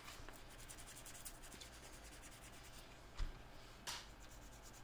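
Toothbrush bristles scrubbing small plastic relay contact parts in quick, faint, scratchy strokes. About three seconds in comes a dull thump, then a sharp click shortly after.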